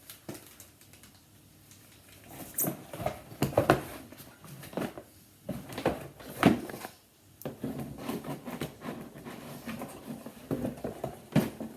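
Cardboard box and packaging being handled: irregular rustles, scrapes and light knocks.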